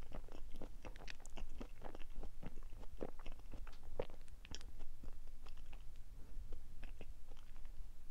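A person chewing a soft chocolate-coated marshmallow sweet with the mouth closed: a steady run of small, irregular wet clicks and smacks.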